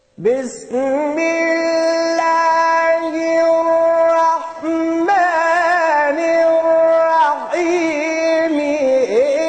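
A solo voice in melodic Quran recitation, holding long steady notes, with wavering ornamented turns about five seconds in and again near the end.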